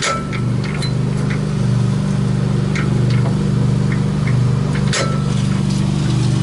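A steady low mechanical hum with a slow pulse runs throughout, with a few scattered metallic clicks and clinks, two of them sharper, at the start and about five seconds in. The clicks fit the International Harvester LA engine being turned over by hand, its valves moving against compression.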